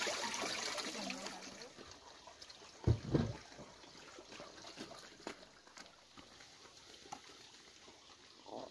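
Two dull thumps about three seconds in, followed by soft, scattered footsteps on a dirt path.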